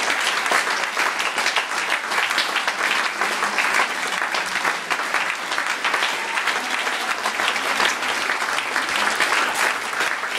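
Opera audience applauding in a standing ovation: dense, steady clapping from a large hall full of people.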